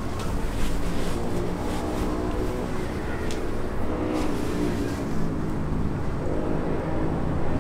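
Motorcycle engine running steadily, its pitch shifting slightly up and down.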